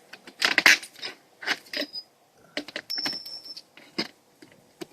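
Flat bar prying the nails loose from under a vinyl siding panel: irregular metallic clicks, knocks and rattles of the bar on nail heads and vinyl, with a brief high squeak near the middle as a nail is worked out.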